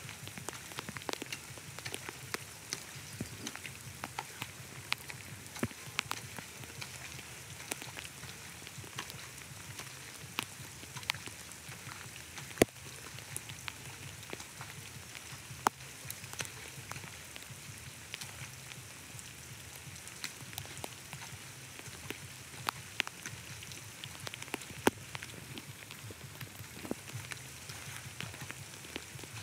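Irregular patter of water drops and small splashes over a steady wash of water, with scattered sharp ticks throughout.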